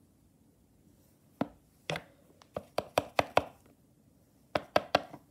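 A craft knife chopping down onto a wooden tabletop: about a dozen sharp knocks in two bursts, the second burst about a second after the first.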